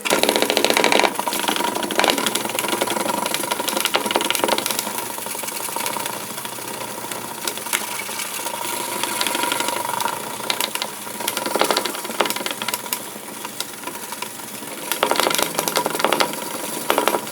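Wet-sanding a plastic headlight lens by hand with a fine-grit foam sanding pad (the kit's third of four grits), scrubbed back and forth left to right in a continuous scratchy rhythm that gets a little louder near the end.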